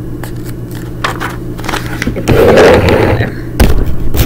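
Paperback picture book being handled and its page turned close to the microphone: scattered clicks, a loud paper rustle a little past halfway, then two sharp knocks near the end, over a steady low hum.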